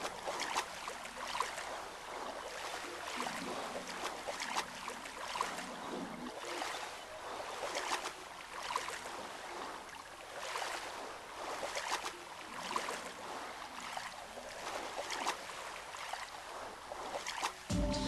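Water lapping and splashing, with irregular small splashes and trickling over a steady wash.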